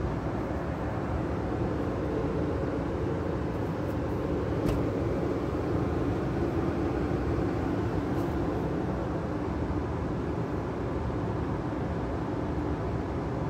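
Gas furnace blower fan running steadily after the burners have shut off, a continuous rush of air: the fan-off delay that clears the last heat from the heat exchanger before the blower stops.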